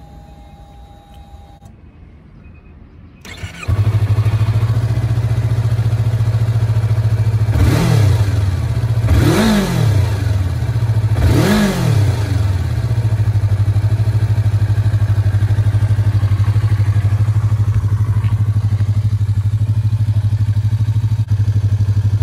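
Yamaha YZF-R25's 249 cc liquid-cooled parallel-twin engine starting about three and a half seconds in after a quiet pause, then idling steadily. It is revved up and back down three times between about 8 and 12 seconds in, then settles back to a steady idle.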